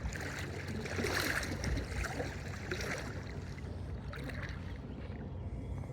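Floodwater sloshing and swishing around a person's legs as he wades through it, in uneven surges that are stronger in the first few seconds.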